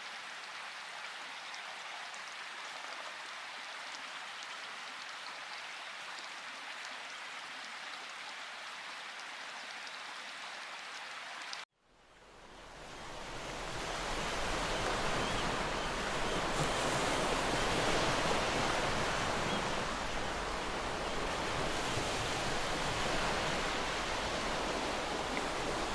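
Steady hiss of rushing water. About twelve seconds in it cuts out abruptly, and a louder, deeper rush of water fades in and holds steady.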